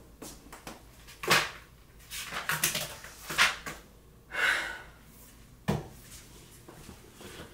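Paper and desk handling: a few sharp knocks and clicks with a rustle of pages about four and a half seconds in as homework papers and a notebook are moved on a desk, and one sharp click near the end.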